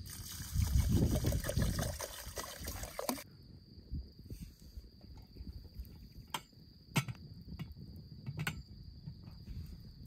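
Water poured from a plastic bottle into a copper pot of rice, splashing for about three seconds. Then come several short knocks and clinks as the lidded copper pot is handled and set down on the campfire stones.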